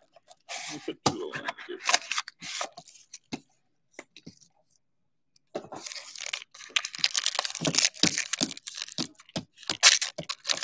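Plastic trading-card pack wrapper tearing and crinkling in irregular rustles, falling silent for a second or so midway.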